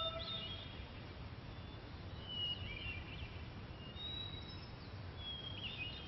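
Small birds chirping and whistling in short, high phrases, several times, over a steady low background rumble of outdoor ambience.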